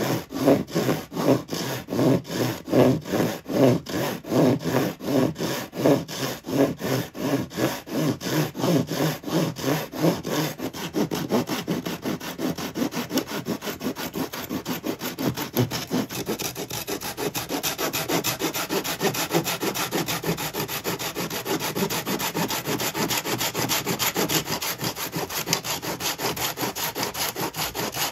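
Japanese pull saw cutting through the thin walnut strips of a kumiko lattice, in steady strokes about two a second. About ten seconds in, the strokes turn quicker and lighter.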